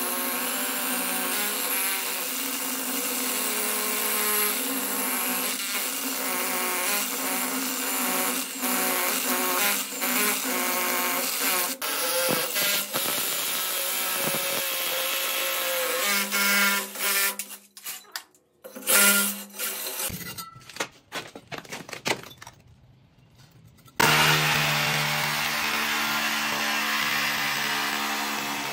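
Hukan RH2900BL 21V brushless cordless hammer drill running under load, boring into a concrete wall with a core bit and then a masonry bit: a steady motor whine. It cuts out in the last third with a brief quiet gap, then starts again at a lower pitch.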